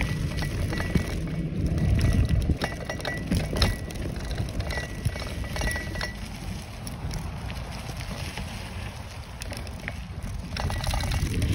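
Bicycle ridden fast over a bumpy dirt trail: tyres and wind rumbling, with the chain and frame rattling in irregular sharp clinks over the bumps.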